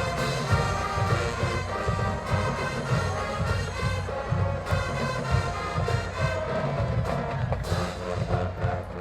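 Marching band playing, brass holding sustained chords over a dense, pulsing low end of drums and low brass.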